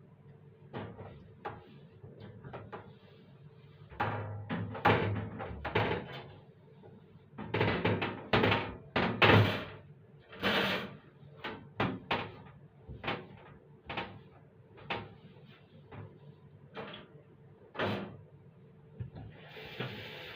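Hard objects knocking and clattering as they are handled and set down, in irregular runs, loudest in two clusters in the first half, then sparser single knocks. Near the end a steady hiss starts.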